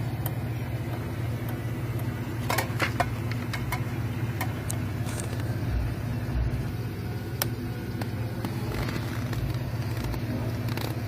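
1999 Chevrolet Blazer's 4.3-litre V6 engine idling steadily, with scattered light clicks, a small cluster of them a few seconds in.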